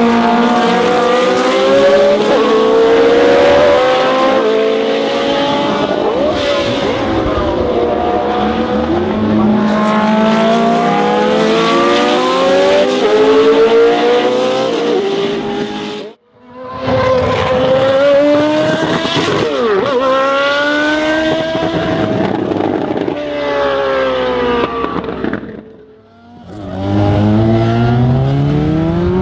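Racing car engines, led by the 1986 Osella F1 car's Alfa Romeo turbocharged V8, accelerating at full throttle: the pitch climbs through each gear and drops at every upshift, over and over. The sound breaks off abruptly about halfway through and dips again a few seconds before the end, then starts again low and climbing.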